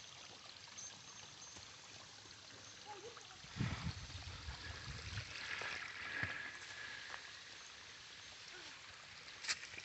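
Faint running water of a creek, a steady soft rush, with a few soft low thumps in the middle.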